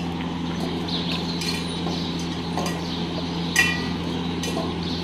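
Stainless-steel dog bowls clinking as dogs feed from them, with small scattered knocks and one sharp ringing clink about three and a half seconds in, over a steady low hum.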